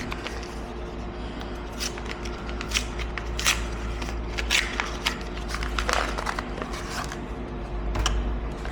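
Scattered small clicks and taps of parts being handled as a pitcher rinser's push valve is taken apart, over a steady low hum.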